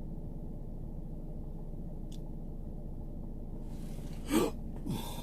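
Steady low hum inside a car's cabin, with a short breathy vocal sound, like a gasp or murmur, about four seconds in and a smaller one just before the end.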